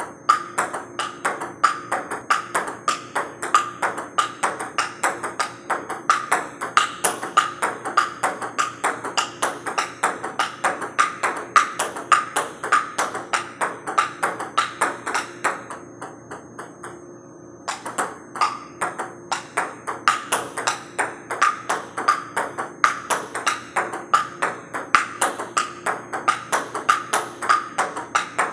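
Table tennis ball clicking quickly and steadily off the paddle, the table and the folded-up half of a JOOLA table in solo rebound practice. The rally stops for about a second and a half in the middle, then picks up again at the same pace.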